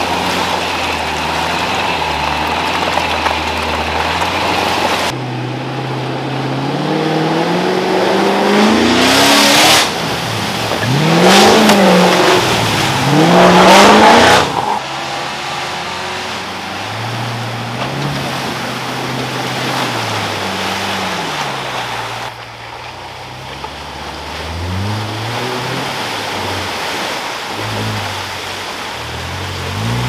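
Off-road 4WD engines revving up and down as the tyres spin and churn through deep mud and water. The loudest stretch is in the middle, where the revs climb and mud sprays hard. The sound cuts abruptly from one clip to the next a few times.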